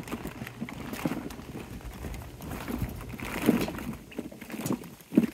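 Hollow plastic ball-pit balls knocking and rustling against each other in an irregular clatter as puppies scramble through them.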